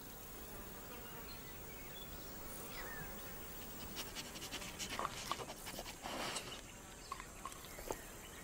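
Quiet outback ambience with insects buzzing, a short falling chirp about three seconds in, then a cluster of soft sharp clicks and a brief rustle around the middle.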